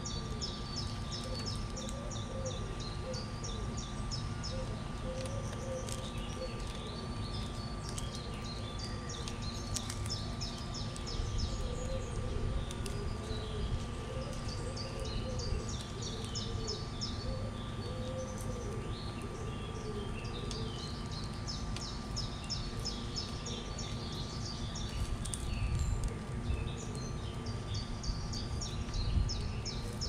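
Doves cooing, a low arched coo repeated again and again, while small birds chirp in quick runs of high notes. A steady low rumble runs underneath.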